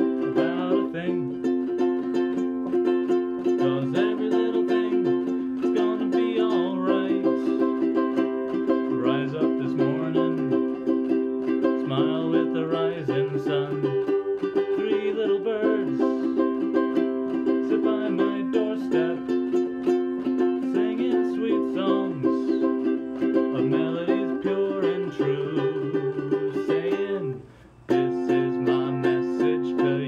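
Ukulele strummed in chords, with a man singing along. The playing breaks off for a moment near the end, then resumes.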